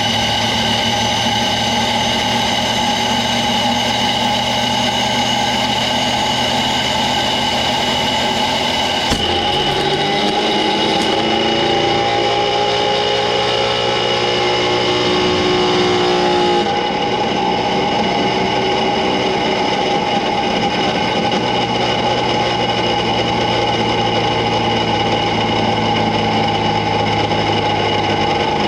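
High-speed gear test rig spinning a greased 3D-printed PC+ straight spur gear, a loud steady mechanical whine made of several pitches. About nine seconds in there is a click, then pitches climb for several seconds before the sound changes abruptly and settles into a steady whine again.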